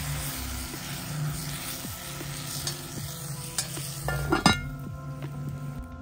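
Sliced potatoes sizzling in a hot cast-iron Dutch oven over a campfire. About four seconds in, the heavy cast-iron lid clanks onto the pot; this is the loudest sound.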